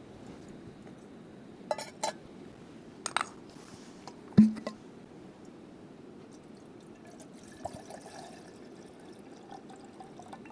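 Camp cookware clinking several times, with one louder knock about four seconds in, then water poured into small camp cookware in a faint trickle.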